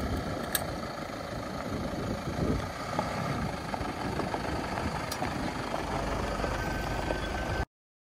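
Toyota Hilux pickup's engine running steadily, with two sharp clicks about half a second and five seconds in; the sound cuts off abruptly near the end.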